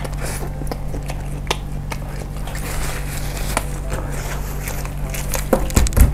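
Close-miked chewing and wet mouth noises of a person eating a mouthful of meatball, with many small clicks over a steady low hum and a few louder low thumps near the end.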